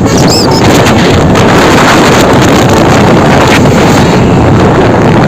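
A bus's engine and road noise, loud and steady, with wind buffeting the microphone.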